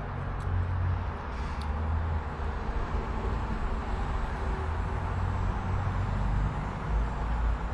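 Steady low outdoor background rumble, with a couple of faint handling clicks in the first second or so.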